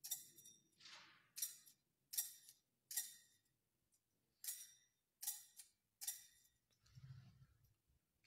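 Hand-rung altar bells, shaken in about eight short, bright rings with uneven pauses and fading by about six seconds in, marking the elevation of the host at the consecration.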